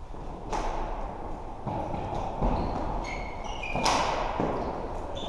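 Floorball play on a sports-hall court: a few sharp knocks of sticks and the plastic ball, about half a second in, near two seconds and loudest near four seconds, with short high squeaks of shoes on the court floor between them.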